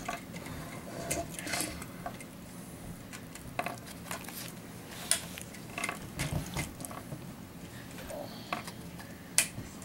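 Plastic Lego bricks clicking and clattering in irregular, scattered taps as pieces are handled and pressed onto the model truck.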